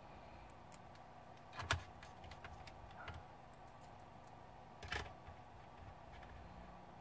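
Light clicks and knocks of small parts, screws and tools being handled while a laptop is put back together, with two louder knocks about two seconds in and about five seconds in.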